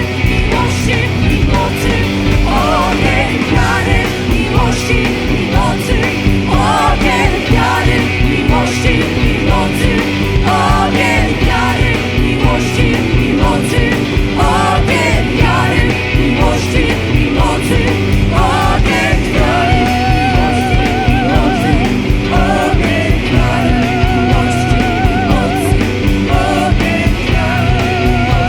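Live worship band playing loud rock-style music with singing and a steady beat. In the second half, long held notes waver with vibrato.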